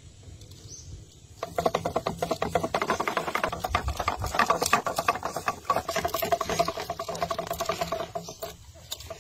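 Homemade fishing reel's line spool spinning fast on its axle as a hooked fish pulls line off it, a rapid rattling whir that starts about a second and a half in and stops near the end.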